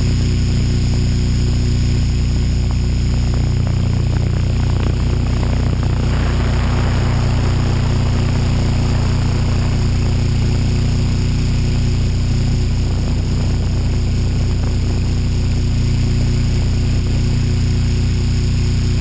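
HK600GT radio-controlled helicopter in flight, heard from a camera mounted on the helicopter itself: a steady, loud hum of rotor and drive tones. A rush of air noise swells between about six and ten seconds in.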